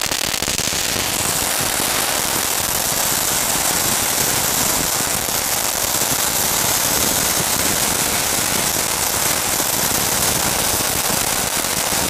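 'Power point' Diwali firework tube lying on the ground, spraying a jet of flame and sparks that pop as they burst: a steady, dense crackling with a hiss.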